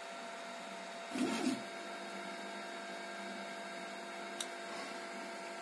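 Home-built CoreXY 3D printer running with a steady hum and whine. About a second in there is a short burst of motor noise as the print head moves at the start of automatic bed levelling, and a single brief click about four seconds in.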